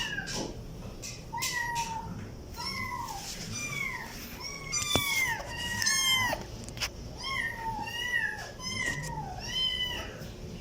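Kitten meowing over and over: short, high-pitched meows that rise and then fall, about one a second, a few of them overlapping.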